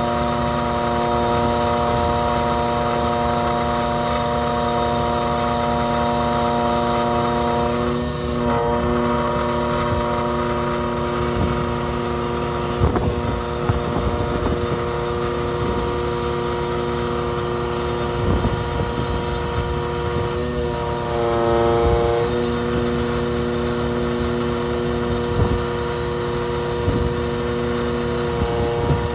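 Research ship's engine and deck machinery running with a steady multi-tone hum, its pitch sagging briefly twice as the load changes. Some sharp knocks come through in the middle and near the end.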